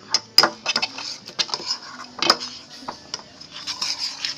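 A stirring stick knocking and scraping against a container as thickening slime is stirred, in quick irregular clicks and taps.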